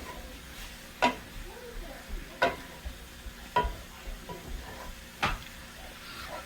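Beef and jalapenos sizzling in a hot pan while being stirred, with a utensil knocking sharply against the pan four times about a second or so apart.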